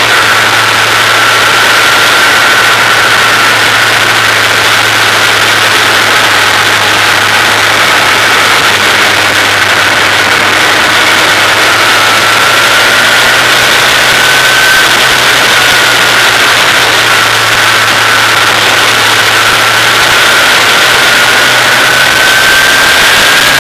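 Formula 2000 open-wheel race car's engine running hard at speed on track, very loud, its pitch sagging and climbing slowly a few times, over heavy wind rush on the microphone.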